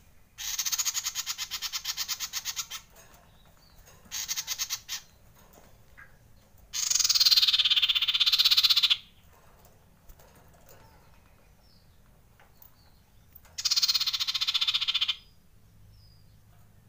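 Male common iora giving four harsh, rapid rattling calls; the third is the longest and loudest and dips in pitch in its middle. This is the frightened alarm rattle.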